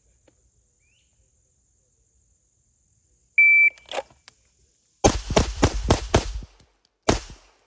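A shot timer beeps once. After a pause for the draw, a 9mm Pilot Mountain Arms Operator 1911 pistol fires five quick shots, then a sixth about a second later, completing the six-round bill drill after the shooter lost count.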